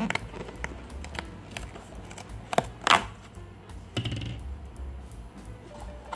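Background music with a series of sharp clicks and taps, two louder ones about halfway through and a rougher rustle-like burst shortly after.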